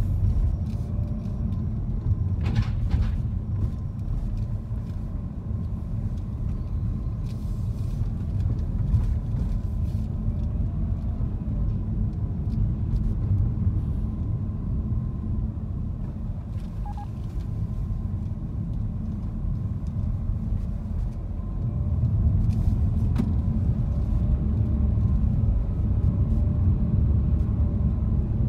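Car driving, heard from inside the cabin: a steady low engine and road rumble that grows louder about three quarters of the way through.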